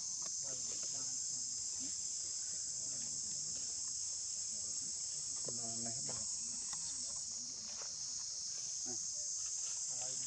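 Steady, high-pitched drone of insects, easing slightly about eight seconds in. A brief voice-like call rises over it about six seconds in.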